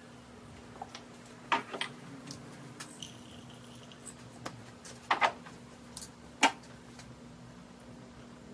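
Sharp clinks and taps of a small glass jar with a metal lid being handled and set against the stove. They come in a cluster about a second and a half in, then several more between five and six and a half seconds, over a faint steady hum.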